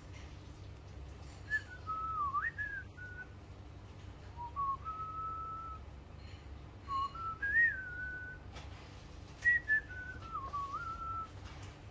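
A person whistling a slow, wandering tune in four short phrases, each a single clear note sliding up and down.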